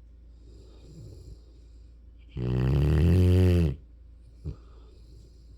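Mastiff–rottweiler mix puppy snoring in its sleep: one long, loud snore about halfway through, with soft breathing before it and a brief click near the end.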